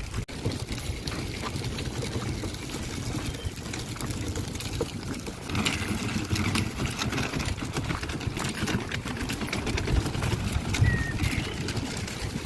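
Wind buffeting the microphone in uneven gusts, a steady low rumble, with a few faint high chirps late on.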